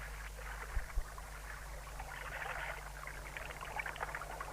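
River water lapping and trickling, a water sound effect for a riverbank scene, swelling about halfway through. There are two soft low thumps about a second in.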